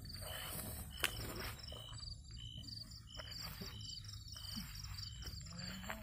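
Night insects chirping steadily. Two kinds repeat about twice a second: a high pulsed trill and a lower short even note. A single sharp click comes about a second in.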